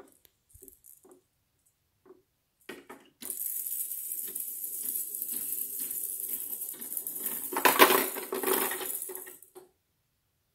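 Plastic ball rolling down a baby toy's plastic spiral ramp tower, a continuous rattle of about six seconds that swells near the end as it reaches the base, after a few light plastic clicks.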